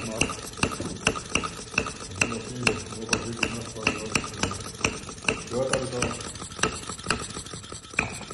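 Model Lenoir gas engine built from an old sewing machine, running steadily with a sharp, regular pop a little over twice a second and a low mechanical rattle between the pops.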